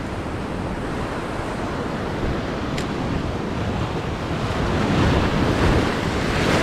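Ocean surf washing in, with wind buffeting the microphone; the surf swells a little louder about five seconds in.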